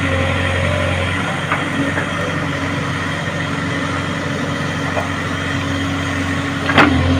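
JCB excavator's diesel engine running steadily while it works, with a few light knocks and one sharp clank near the end.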